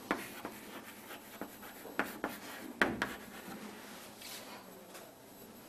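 Handwriting: faint scratching strokes of a pen or chalk on a writing surface, with a few sharper taps and strokes about two and three seconds in.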